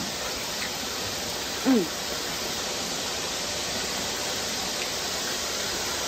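Steady, even hiss of outdoor background noise, with a short falling vocal sound from one of the boys a little under two seconds in.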